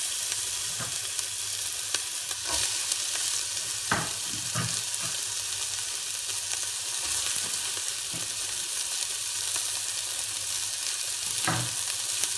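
Sliced onions and diced carrots sizzling in olive oil in a stainless steel saucepan, a steady frying hiss of the vegetables gently browning. A few short knocks sound over it.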